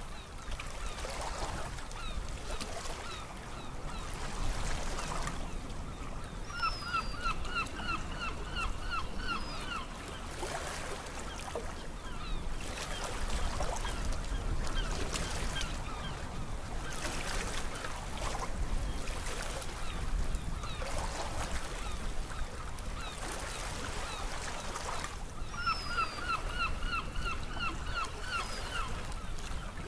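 Sea waves washing in with a steady hiss that surges every few seconds. Twice, a bird calls a quick run of about ten short yelping notes, the same call both times.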